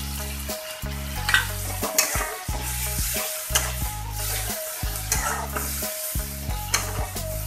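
A flat metal spatula stirs and scrapes an onion-tomato masala frying and sizzling in a metal kadai, with a sharp scrape against the pan every second or so. The ginger-garlic paste and ground cumin have just gone in to fry. Underneath runs a low steady hum that breaks off now and then.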